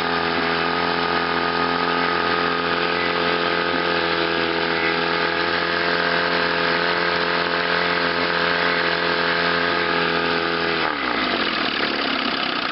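Chrysler two-stroke outboard motor running steadily under load on a test wheel in a water barrel, firing evenly now that its ignition misfire has been cured with new condensers and reset points. About eleven seconds in it is throttled back and the engine speed drops.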